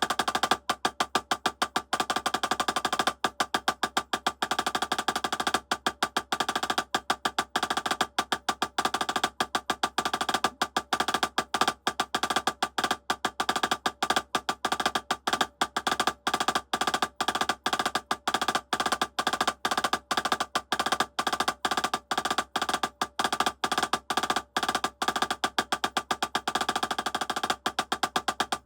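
Drumsticks playing a fast, continuous sticking exercise of single-stroke rudiments, a rapid even stream of sharp strokes with no pause.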